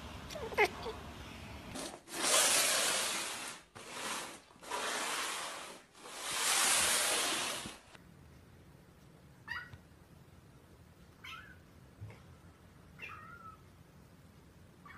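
A cat gives one short meow, then four long, loud bursts of rushing noise follow. After that, a kitten gives three short high mews, a couple of seconds apart.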